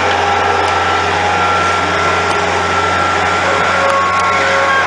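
Dump truck's engine running steadily at idle, a constant low hum.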